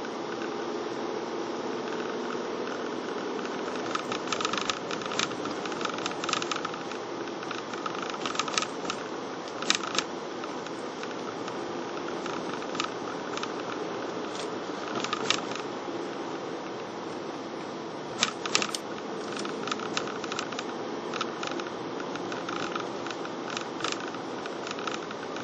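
Steady hum of a car's engine and tyres heard from inside the cabin while driving slowly, with irregular clicks and rattles from the interior or camera mount over road bumps.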